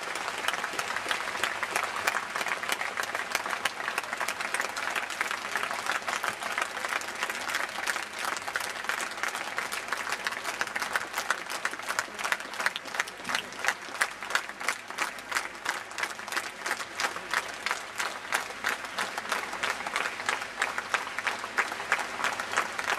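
Large concert audience applauding, a dense steady clatter of many hands clapping that turns into more rhythmic clapping about halfway through.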